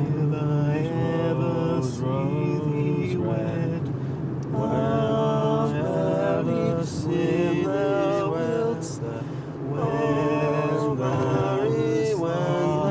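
Several men chanting a tune together in phrases of held, wavering notes inside a moving car, over the car's steady low hum.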